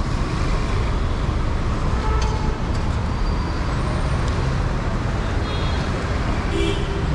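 Steady city road traffic noise from passing vehicles' engines, a continuous low rumble with no single standout event.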